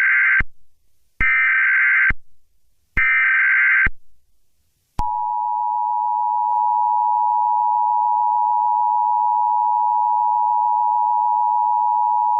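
Emergency Alert System SAME header: three short bursts of buzzing data tones, each under a second, marking the start of an alert. From about five seconds in comes the steady, loud two-tone EAS attention signal.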